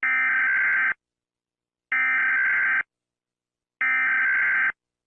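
Emergency Alert System SAME header: three identical bursts of digital data tones, each just under a second long and about two seconds apart, which open an emergency alert.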